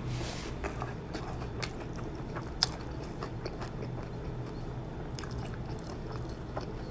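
Close-up chewing and crunching of crunchy shrimp tacos: scattered crisp crunches with one sharper crunch about two and a half seconds in, over a faint steady low hum.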